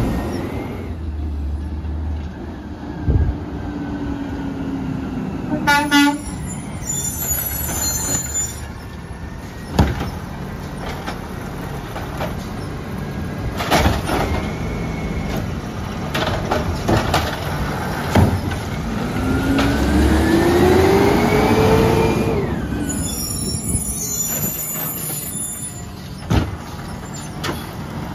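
Peterbilt 320 garbage truck with an automated side-loading arm working through a curbside pickup. The engine revs up and down to drive the hydraulics, with a long rising whine about two-thirds of the way through. Several sharp knocks and bangs come as the arm grabs, lifts and dumps the carts.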